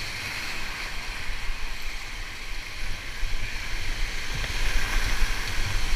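Whitewater rapids rushing close around a kayak, a steady noise of churning water with a low rumble underneath, growing louder toward the end.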